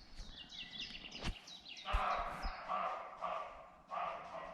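Roe deer barking: a run of harsh, repeated barks starting about two seconds in. Before them a small bird gives quick, high descending chirps.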